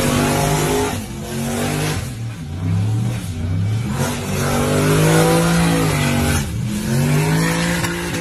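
Car engine revving hard, its pitch climbing and dropping several times, over a steady hiss of spinning tyres in a smoky burnout.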